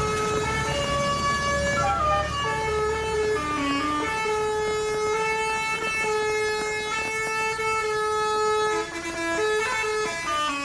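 A bus's telolet basuri musical air horn playing a tune: several loud held notes that step up and down in pitch, with one long steady note through the middle.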